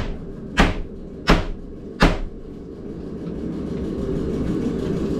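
Four sharp knocks on a bathroom vanity cabinet being worked loose, about two-thirds of a second apart, over a steady low hum.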